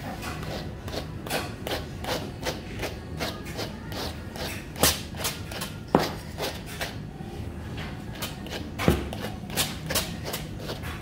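A brush stroking through a Lhasa Apso's long coat in quick, irregular strokes, two or three a second, with a few sharper knocks about five, six and nine seconds in.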